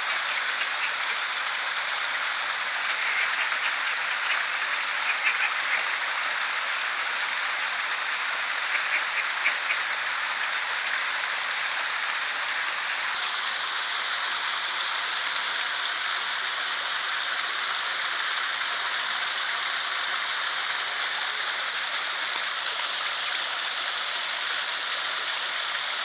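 Small waterfall splashing steadily into a shallow rock pond. Through the first ten seconds or so, rapid high peeping of mallard ducklings sounds over the water.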